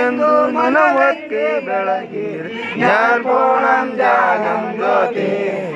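A man's voice chanting a Kannada devotional song to Shiva, in long held, wavering phrases with brief pauses.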